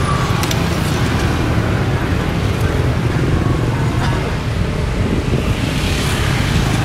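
Street traffic, mostly motorbikes and scooters passing close by, a steady drone of small engines and tyres.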